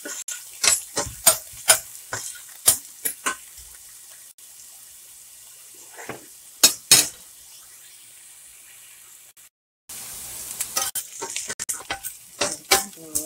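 Diced onion and garlic sizzling in oil in a stainless steel pan, with a spoon stirring and scraping, clicking against the pan in clusters of sharp knocks. The sound cuts out briefly about two-thirds of the way through.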